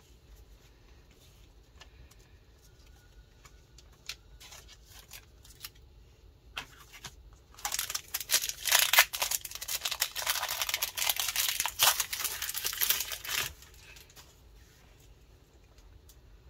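Foil wrapper of a Pokémon booster pack being torn open and crinkled: a dense crackling rustle lasting about six seconds from about halfway in, after a few faint handling clicks.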